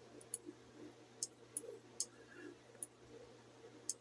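Faint, sharp clicks of a computer mouse, about six scattered through four seconds, over a low steady electrical hum.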